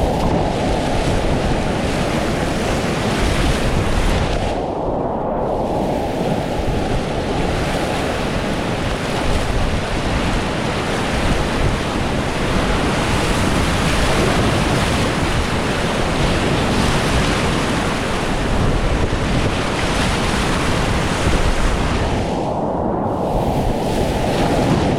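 Loud, steady rush of fast, pushy whitewater rapids, with water and wind buffeting the microphone. The hiss briefly goes dull twice, about five seconds in and near the end.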